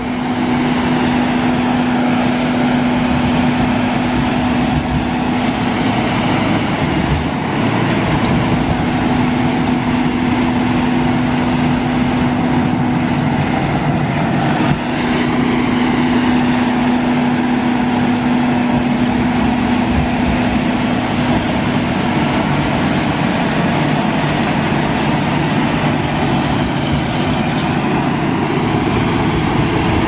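John Deere 850K crawler dozer working close by, its diesel engine running steadily under load as the blade pushes sand. The engine note holds steady, with a brief dip in loudness about halfway through.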